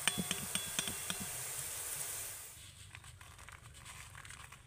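Gram-flour batter dropping through a slotted ladle into hot oil, sizzling and crackling as the boondi fry. The sizzle fades after about two and a half seconds, leaving faint scattered clicks.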